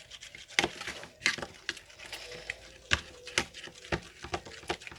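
Irregular clicks and taps of a stirrer knocking against a small pot while glue is mixed with pink colouring for slime.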